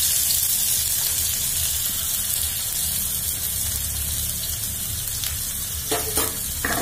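Chopped onions sizzling in hot refined oil in a kadai just after being added: a steady frying hiss that eases off slightly. A couple of short knocks come near the end.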